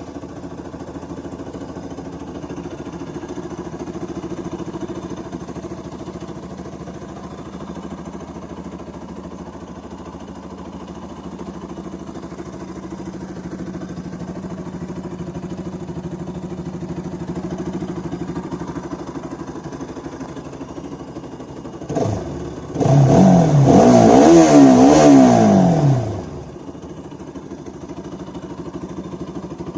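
Single-cylinder motorcycle engine on its stock exhaust idling steadily. About 22 seconds in it is blipped once, then revved up and down hard for about three seconds before it drops back to idle.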